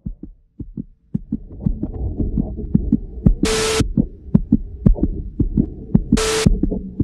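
Soundtrack sound design: low heartbeat-like thumps, sparse at first and then coming quick and close together after about a second, cut twice by short bursts of static-like glitch noise, about three and a half and six seconds in.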